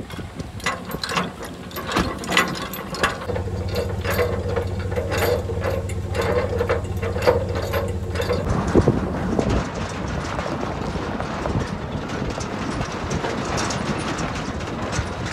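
Bulldog trailer tongue jack being cranked, its gears clicking rapidly, with a pickup's engine running steadily. About eight and a half seconds in the clicking stops, and the truck and trailer roll off on gravel.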